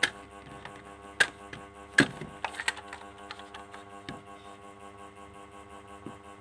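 Sharp plastic clicks and knocks as the battery cover is prised off the underside of a toy RC car. The loudest come right at the start and at about one and two seconds in, then a few lighter ticks, over steady background music.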